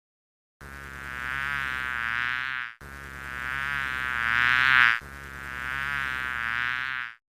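A flying insect buzzing, played three times in a row, each buzz about two seconds long with a wavering pitch. The middle one grows loudest before cutting off.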